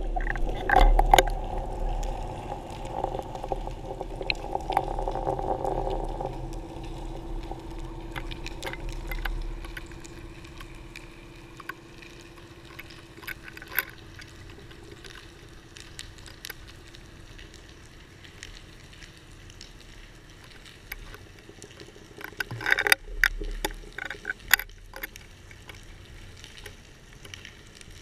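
Underwater sound picked up through a GoPro's waterproof housing at depth: scattered sharp crackling clicks, with a low hum and rumble that fade away over the first several seconds, and a denser flurry of clicks and knocks a few seconds before the end.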